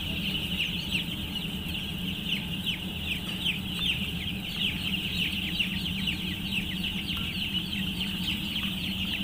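A house full of young broiler chicks peeping all at once: a dense, unbroken chorus of short, high, falling chirps, over a steady low hum.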